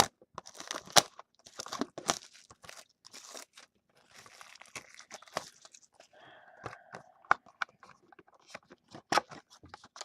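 Plastic wrapping and cardboard of a sealed trading-card box being torn open and handled: irregular tearing, crinkling and rustling with sharp clicks.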